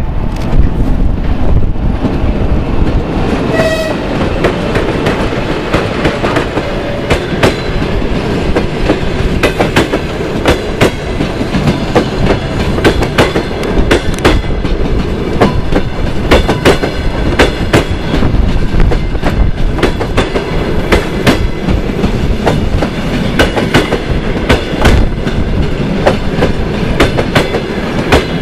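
A passenger train hauled by a ChS4T electric locomotive passing close by, its wheels rumbling steadily and clicking over the rail joints in quick succession as the coaches roll past. There is a short horn note just under four seconds in.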